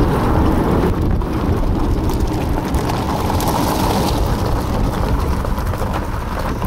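Wheels of a four-wheel dog-sled training cart rolling over a gravel track: a steady, rough rumbling crunch with no break.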